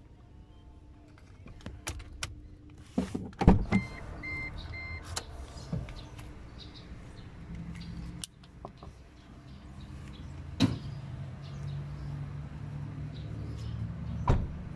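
Car interior sounds in a 2019 Proton Saga: a few clicks and knocks, then three short electronic chime beeps, followed by a steady low electric whir. A sharp knock comes midway and another near the end as the driver's door is opened.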